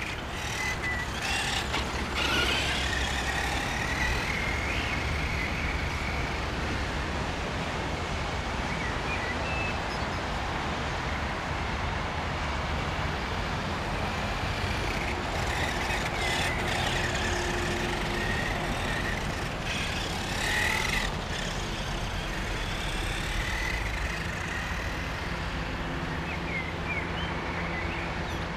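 Brushed electric motor of a Helion Dominus 10SC 1/10 RC truck whining as it drives, its pitch rising and falling with the throttle, over a steady low rumble.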